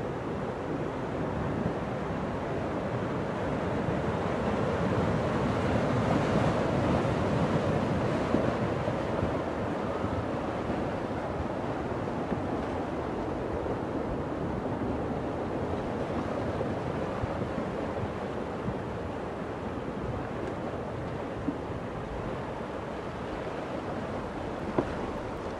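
Flash-flood surge of muddy water laden with sticks and debris rushing down a river channel: a steady roar of rushing water that swells to its loudest about six to eight seconds in.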